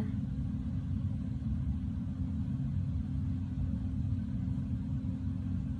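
Steady low rumble, even throughout, with no distinct knocks or other events.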